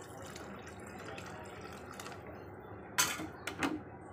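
Water pouring from a glass into chicken curry in an aluminium pressure cooker; the pour ends about two seconds in. Two sharp knocks about half a second apart follow near the end and are the loudest sounds.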